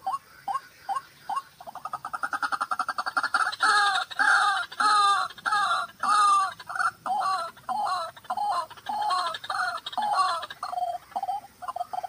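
White-breasted waterhen (ruak-ruak) calling. A few short rising notes lead into a fast run that builds into loud, repeated 'ruak' calls about two a second, which break up into shorter notes near the end.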